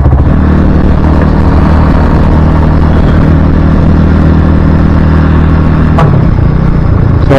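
Motorcycle engine running steadily at low speed, about 30 km/h, picked up close by an action camera's microphone fitted with a homemade windscreen. A sharp click comes about six seconds in, and the engine note shifts after it.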